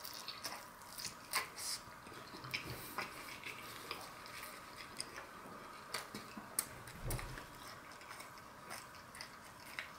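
Quiet close-up chewing of a pickled pepper, with scattered small wet mouth clicks.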